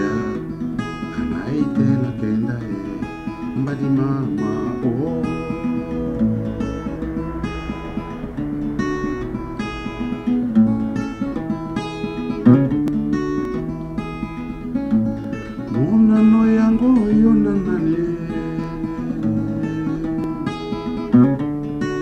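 A man singing a traditional Congolese song in phrases, accompanying himself on acoustic guitar with steadily plucked and strummed chords.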